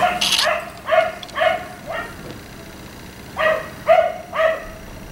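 Black Labrador retriever barking: a quick run of about five barks, then after a pause of over a second, three more.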